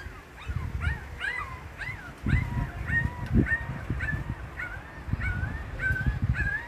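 A rapid series of short, high-pitched animal calls, about two a second, each rising and then falling in pitch, over low rumbling thumps.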